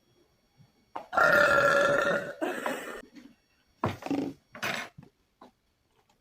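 A person burping: one long burp of about two seconds starting about a second in, followed by two shorter sounds.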